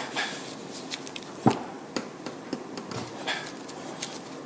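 Light rustling with several small, sharp taps, the clearest about a second and a half in, from hands handling drawing materials.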